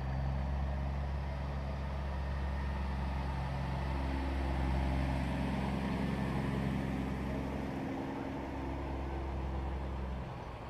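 Semi-truck's diesel engine running as the truck drives past close by, loudest about midway; the low engine note drops away shortly before the end.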